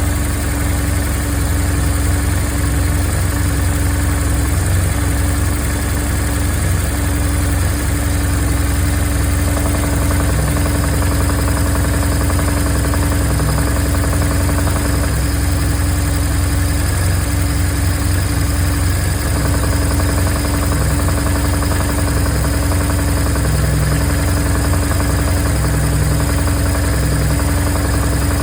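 2002 BMW R1150R's flat-twin engine idling steadily, with an extra mechanical noise from the clutch side that comes with the clutch lever pulled in. The engine's sound changes in the mid-range a few times, with the lever being pulled and released.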